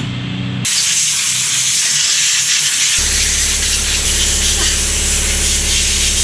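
Compressed air hissing from a handheld air blow gun, blowing debris off a chainsaw part; the hiss starts abruptly about half a second in and holds steady. A steady low hum joins about three seconds in.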